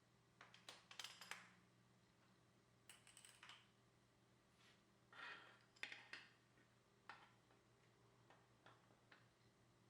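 Near silence with faint scattered clicks and taps of small metal parts being handled: the headset cups and press tool being set in place on the frame.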